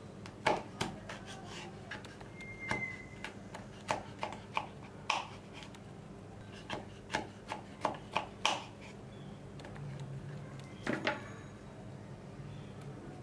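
Knife chopping on a cutting board: irregular sharp taps and knocks, some in quick runs.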